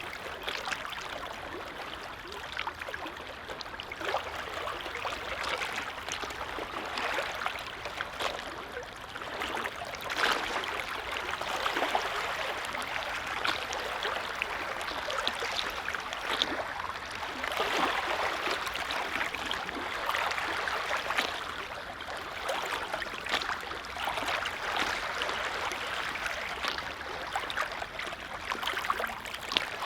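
Small waves on a calm lake lapping and splashing in a continuous, irregular wash, with frequent small swells.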